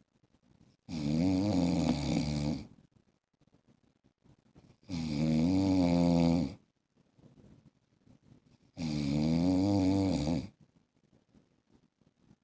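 A man snoring: three loud snores about four seconds apart, each nearly two seconds long, with quiet between them.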